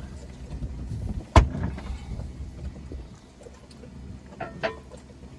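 One sharp, loud knock about a second and a half in, then a couple of lighter clicks near the end, over a steady low rumble of wind and boat noise. This is hard handling noise from working on a steel anchor.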